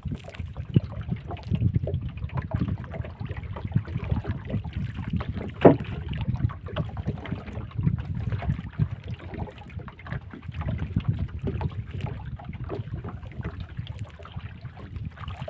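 Wind buffeting the microphone and water splashing around a small boat as a fishing net is worked over the side with a wooden pole, with scattered small knocks and one sharp knock a little over five seconds in.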